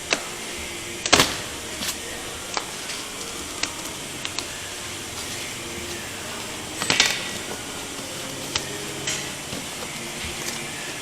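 Wheel box and its packaging being opened and handled: scattered sharp knocks and crackles over a steady background noise, loudest about a second in and again in a short cluster around seven seconds.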